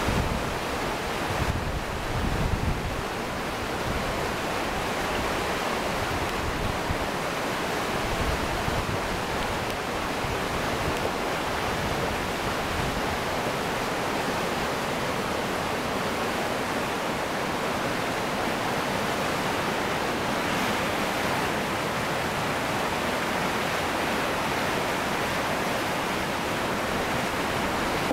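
River in flood, its fast, muddy water rushing steadily over rapids. Gusts of wind rumble on the microphone in the first few seconds.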